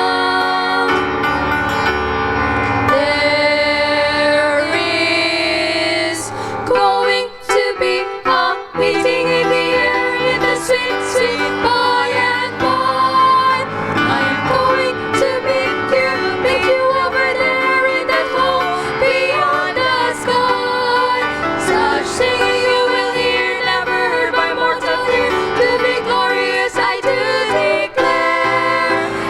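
Music with female singing and instrumental accompaniment. It opens on a long held chord, drops briefly around seven seconds in, then carries on without recognisable words.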